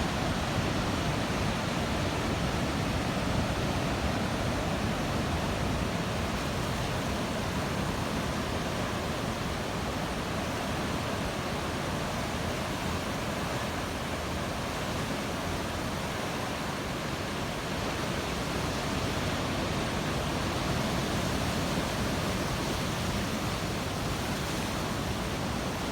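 Steady roar of big ocean surf breaking, an even rushing noise without pauses.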